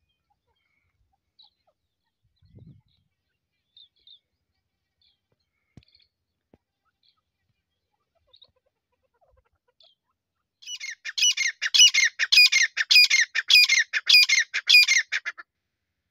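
Grey francolin calling. A few faint, scattered chirps come first. About ten seconds in, a loud, harsh call starts and repeats rapidly, about three notes a second, for some five seconds before stopping.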